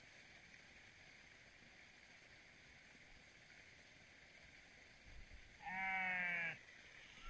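A single wavering bleat from a sheep or goat, about a second long, near the end. Before it there is only faint steady outdoor background.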